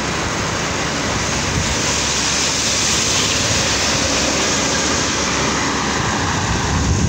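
Steady rushing road and wind noise from a moving vehicle, a little louder midway as a truck passes close alongside.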